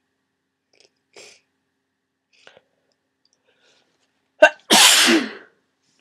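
A person with a heavy cold sneezing once, hard. A few faint breaths lead up to it, then about four and a half seconds in comes a sharp catch and a loud, snotty burst lasting under a second.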